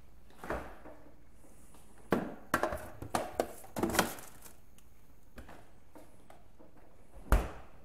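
A large fridge door is opened, a dish is set onto a shelf inside with a few sharp knocks and clatters, and the door is shut with a single heavy thud near the end.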